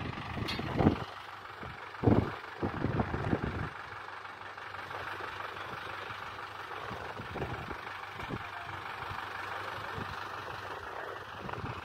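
Tractor engine running steadily while powering a tractor-mounted crane, with a few loud low rumbles during the first four seconds.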